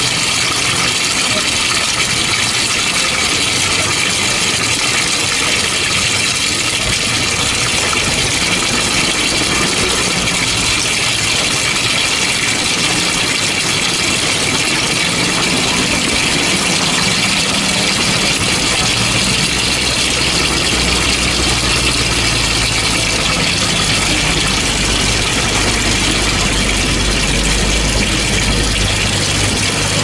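Coin-operated TurboDrum top-loading washing machine running, a steady hiss, with a low hum coming up about two-thirds of the way through.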